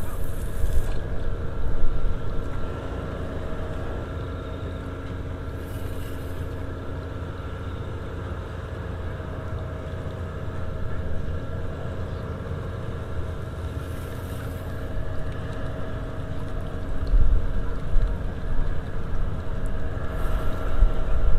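Steady machinery hum with several constant tones, over a gusty low rumble of wind on the microphone.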